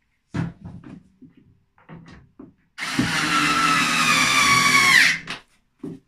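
Cordless electric screwdriver driving a screw into a front-loading washing machine's panel: a few light knocks of handling, then the motor whines for about two and a half seconds, sagging slightly in pitch and dropping sharply as the screw seats before it stops.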